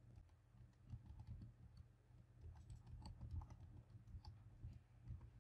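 Faint typing on a computer keyboard: a string of quick, irregular keystrokes as an email address and password are entered.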